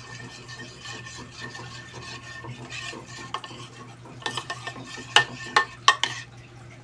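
Metal spoon stirring and scraping a thick, lump-free cocoa-and-water paste in a plastic tub, with a steady low hum underneath. Several sharp clicks of the spoon knocking on the tub come in a cluster a little after four seconds in, the loudest three close together near the end.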